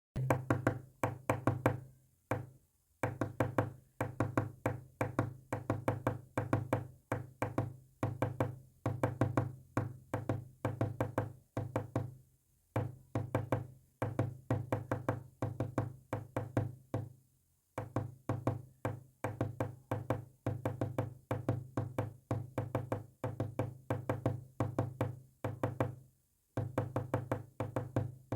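Morse-code-style stream of rapid knocking clicks, several a second, each with a low humming pitch, running in long strings broken by a few brief pauses.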